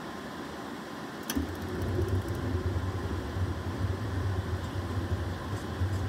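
Atwood RV furnace's blower running with a steady whoosh; about a second in, a click and a quick run of spark-igniter ticks, then the burner lights with a low rumble that keeps going.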